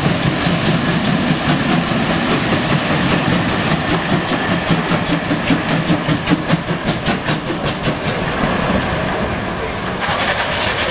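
ÖBB class 638 steam tank locomotive 638.1301 rolling past at low speed: a steady rumble with a quick, regular run of sharp clicks through the middle, easing slightly toward the end.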